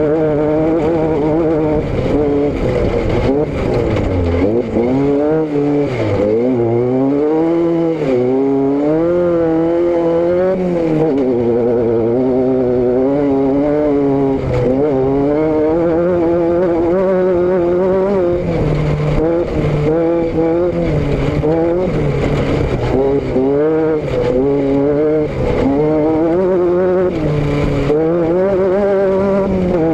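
A vehicle's engine and exhaust running while under way: a steady droning note whose pitch rises and falls smoothly every few seconds as the revs change, with frequent short clicks over it.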